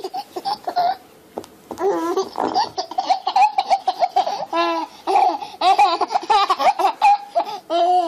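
Baby laughing in a run of short, high-pitched bursts, with a few longer squealing notes.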